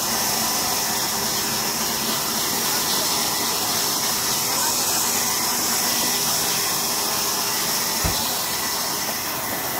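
Large sawmill band saw running steadily as its blade cuts lengthwise through a log. There is one brief low thump about eight seconds in.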